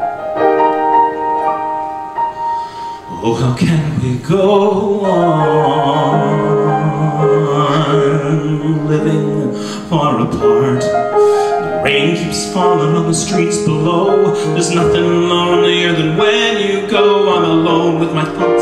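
A man singing a slow ballad with piano accompaniment; the piano plays held chords alone at first, and the voice comes in about three seconds in with long sustained notes.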